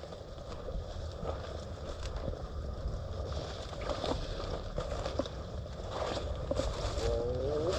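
Outdoor field noise of hunters walking in on a pointed bird: a low wind-like rumble with small crunches and rustles of footsteps through dry cover, and a short gliding whine near the end.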